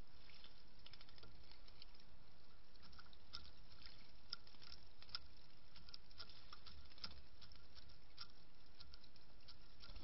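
Mourning dove pecking through seed on a wooden platform feeder: a run of quick, irregular small clicks and taps as its bill picks at the shells, over a steady faint hiss.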